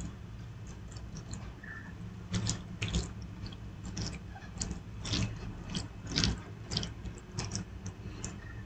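Fingers mixing rice and dal on a plate: faint, irregular clicks and soft squishes starting about two seconds in, over a low steady hum.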